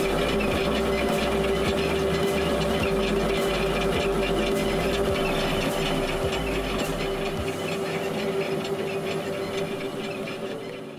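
Inoue U60 three-roll mill running: a steady machine hum with a constant whining tone and hiss. The deepest part of the hum stops about seven and a half seconds in.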